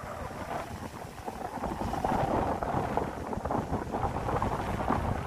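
Wind buffeting the microphone outdoors: an uneven, rough rumble.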